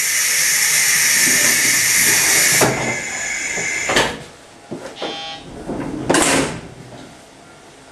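Loud compressed-air hiss for nearly three seconds, then a sharp knock about four seconds in and a thud about six seconds in: a 711 series electric train's pneumatic doors working at a station stop.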